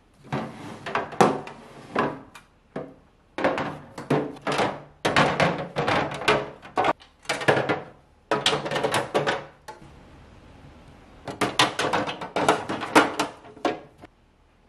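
Clear plastic refrigerator drawers and their inserts being handled and fitted together: bursts of hollow plastic clattering and knocking, separated by short pauses.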